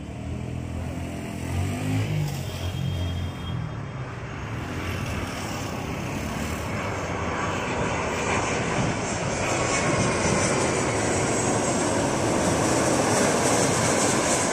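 Jet engines of a twin-engine widebody airliner on final approach, a rushing roar that swells steadily as the plane comes in low and passes close, loudest near the end, with a high whine over it from about halfway.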